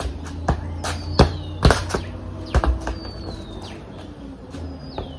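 Soccer ball being juggled, thumping off foot and knee about half a dozen times at an uneven pace. A bird repeats a short falling whistle in the background.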